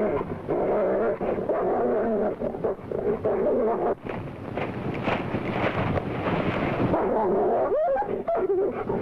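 German Shepherd dog whining and yelping in a run of high, wavering cries, with one cry rising in pitch near the end.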